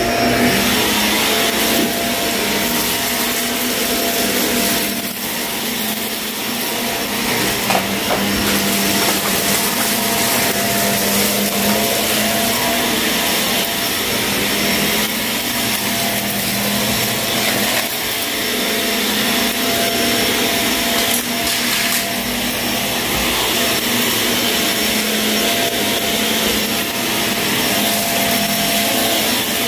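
Shark vacuum cleaner running over carpet: a steady motor whine with the brush rubbing the pile, broken a few times by sharp crackles of grit being sucked up.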